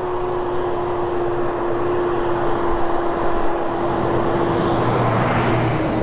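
Garbage truck approaching and passing close by, its engine and tyre noise building to its loudest shortly before the end. A steady hum runs underneath.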